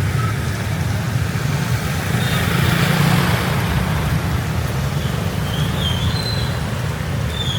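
Motorbike engine running with a steady low hum, under the hiss of a rain-soaked road and traffic. The hiss swells about three seconds in, as if a vehicle passes close by, and faint high chirps come in near the end.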